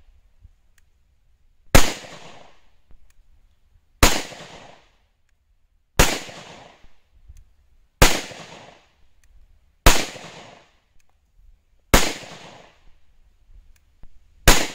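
Seven shots from an FN Five-seveN Mk II pistol firing 5.7x28mm rounds, evenly paced about two seconds apart. Each shot is a sharp crack followed by a short echoing tail.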